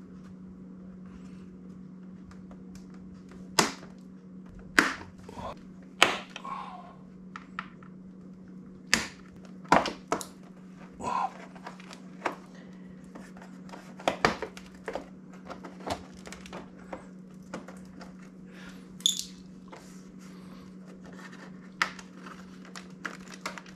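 Plastic push-pin rivets being pried and popped out of a Yamaha R1's front fairing liner, with scattered sharp clicks and knocks at irregular intervals over a steady low hum.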